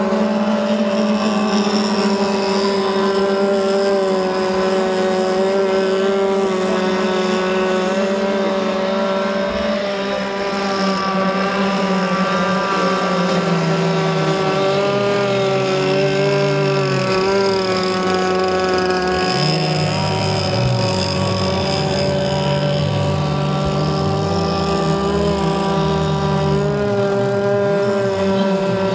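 CMB 26cc two-stroke petrol marine engine of an RC racing boat running at speed through its tuned exhaust, a steady buzzing whose pitch dips and rises several times as the boat goes round. The engine is still being run in, not yet taken to maximum revs.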